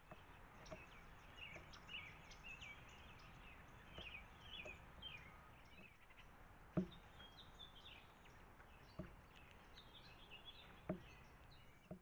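Faint chirping of small birds: many quick, short, downward-sweeping chirps through the first half and again near the end, over a steady hiss. A few sharp knocks stand out, the loudest about seven seconds in.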